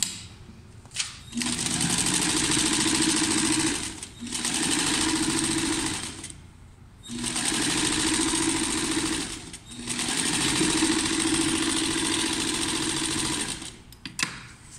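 Electric sewing machine stitching a sleeve seam closed, running in four spells of a few seconds each with short stops between them.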